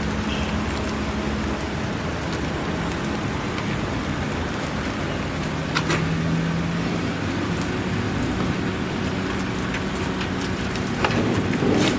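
Roadside burger-stall ambience: a steady hiss over a low engine-like hum, with a few sharp clinks about halfway through and near the end.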